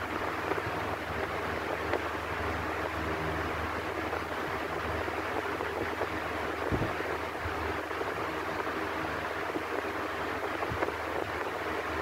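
Electric fan running steadily: an even rush of moving air over a low motor hum, with a couple of faint ticks.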